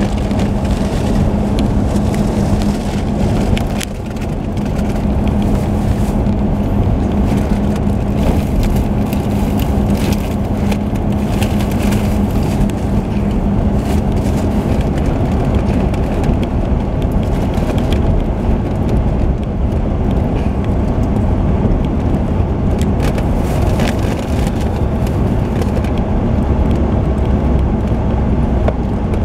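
Car cabin noise while driving: a steady rumble of tyres and road with an engine hum that fades about halfway through.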